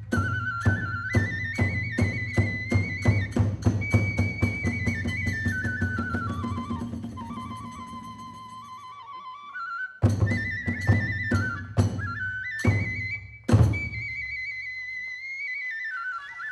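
Kagura festival music: a bamboo transverse flute plays a stepping melody over steady drum beats, about three strokes a second. The drumming dies away, starts again, and ends on a couple of heavy strikes, the last the loudest. The flute then holds a closing note, as at the end of a piece.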